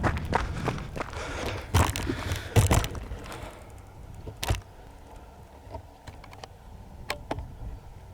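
Hurried footsteps and handling thumps of a person on the move, with rushing noise, dying down about three and a half seconds in. A few scattered knocks and clicks follow.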